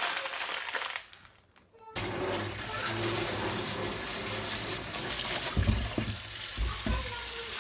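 Crinkling of a bag being handled, then after a short lull a kitchen tap starts running steadily into a stainless-steel sink as tomatoes in a plastic bag are rinsed under the stream, with a few dull knocks near the end.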